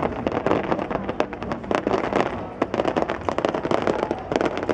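Aerial fireworks display: a dense barrage of sharp cracks and pops, several a second, from crackling shells bursting over the river.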